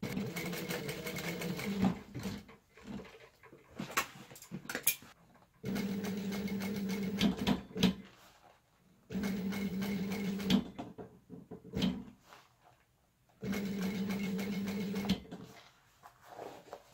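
Industrial sewing machine stitching a faux-leather ATV seat cover, running in four steady humming spells of one to two seconds each. Short clicks and knocks come in the pauses between runs.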